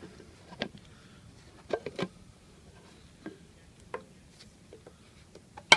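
Scattered clicks and knocks of hard plastic as the parts of an Umoro One supplement shaker bottle are handled and its release mechanism is tried, with the sharpest click near the end.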